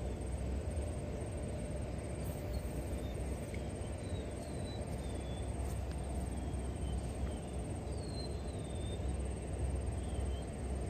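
Outdoor ambience: a steady low rumble, with a faint high insect trill throughout and a few short bird chirps about four, five, eight and ten seconds in.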